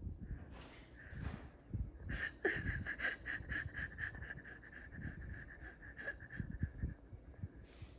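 Small jingle bell on a Ragdoll kitten's collar jingling in a quick, even rhythm, about five shakes a second, for several seconds from about two seconds in, after a brief jingle near the start. Soft low thumps sound underneath.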